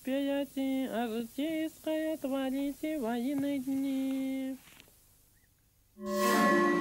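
A single voice chanting prayers in the Old Believer manner: slow syllables held on nearly level notes with small turns of pitch, stopping about two thirds of the way in. After a short pause, a sustained ringing chord of music starts suddenly near the end.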